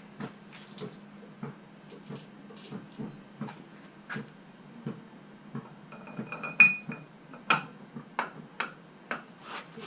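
Light metal clicks and knocks of hand tools and wheel-spacer hardware being worked at the car's hub, coming about twice a second. A ringing metallic clink about six and a half seconds in is the loudest sound, followed by several sharper clicks.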